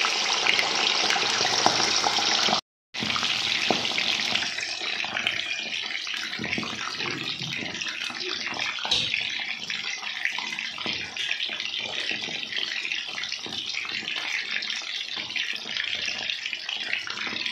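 Chicken leg pieces deep-frying in hot oil, a steady loud sizzle. It cuts out for a moment about three seconds in, then carries on slightly quieter.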